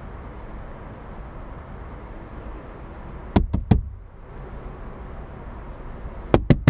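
Knuckles rapping three times on a car window, heard from inside the car, then three more raps about three seconds later, over a steady low rumble.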